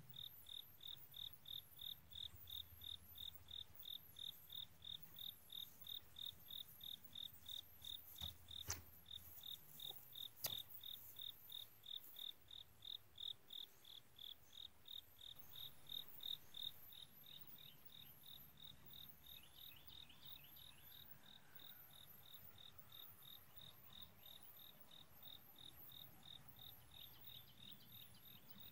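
Crickets chirping in a steady rhythm of about two chirps a second, growing fainter about halfway through. There are two brief sharp clicks around a third of the way in.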